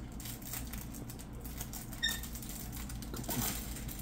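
Aquarium aeration running: a steady low hum under a crackly patter of air bubbles streaming up through the tank water, with a brief high squeak about two seconds in.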